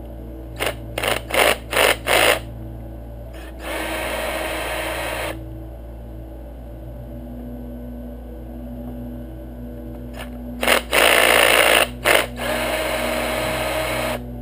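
Cordless drill-driver backing out cover screws: four short trigger bursts, then a steady run of about two seconds. The same pattern comes again, a few short bursts and then a longer steady run, near the end.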